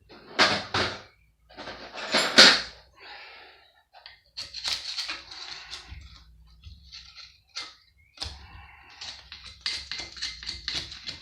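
Metal clinks, knocks and scraping as hand tools and metal pump parts are handled while the pump is taken apart, with two louder strikes in the first few seconds and a quick rattle of clicks near the end.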